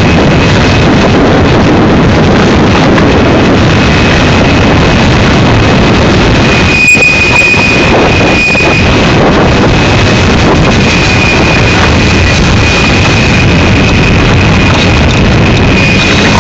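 Union Pacific manifest freight train rolling past close by: a loud, steady rumble of wheels on rail, with a steady high-pitched squeal over it, strongest about midway.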